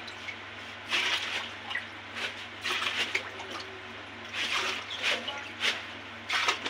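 Black-salt water trickling through a strainer into a large steel drum of water while a steel ladle stirs it, with irregular splashes. The strainer keeps the salt's grit out of the pani puri water.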